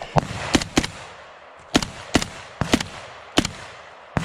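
Rifle shots from several soldiers, about nine sharp single cracks at irregular intervals, some in quick pairs, each followed by a short echo among the trees.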